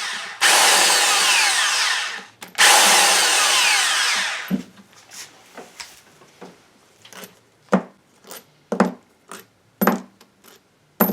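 A handheld power drill or driver runs in two bursts of about two seconds each while the power steering pump is being taken apart, followed by a string of sharp clicks and knocks as metal parts are handled.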